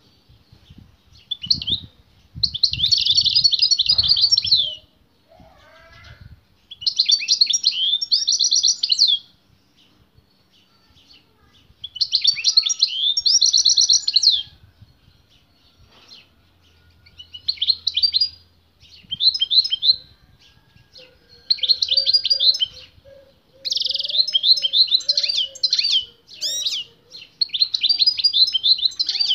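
European goldfinch singing: fast, twittering, trilled phrases of one to three seconds each, repeated about eight times with short pauses between.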